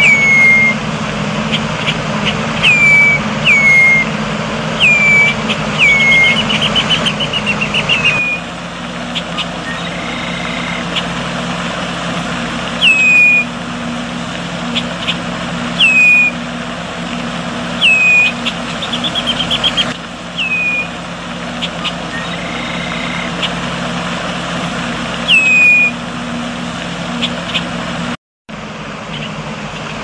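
Red-winged blackbird calling: a short whistled note that slurs sharply downward, repeated every second or two, with a quick descending chatter about six seconds in and another near twenty seconds. A steady low hum runs underneath.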